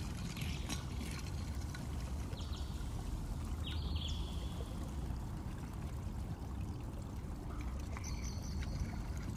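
Steady rushing noise of water running, with two brief high chirps, one about four seconds in and one near the end.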